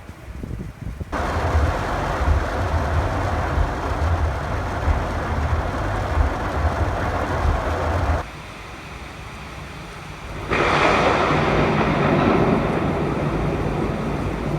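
Heavy rain storm with wind buffeting the microphone and a low rumble underneath, cutting in abruptly about a second in, dropping away sharply around eight seconds and coming back louder and hissier about ten and a half seconds in.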